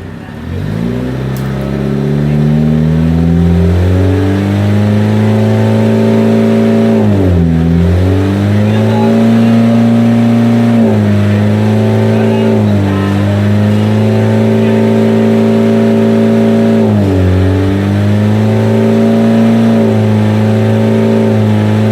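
Mitsubishi L300 van's diesel engine revved up from a low idle and held at high revs, the throttle briefly let off and opened again three times, as in a free-revving smoke test.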